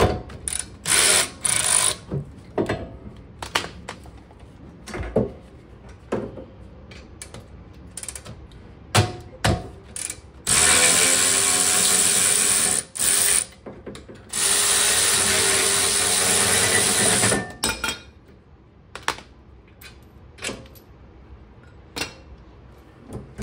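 A power tool on an 18 mm socket runs in a few short bursts near the start, then in two long steady runs of about two and three seconds in the middle, taking out the rear brake caliper bracket bolts. Tools click and clink against metal in between.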